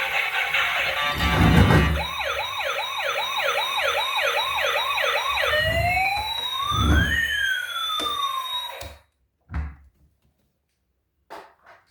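Electronic siren sound effect from a toy emergency vehicle: a rapid run of about nine rising whoops, then a slower up-and-down wail that cuts off suddenly. A few faint clicks follow.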